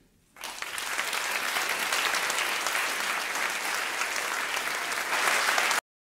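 Audience applauding at the end of a talk, beginning about half a second in and cut off abruptly near the end.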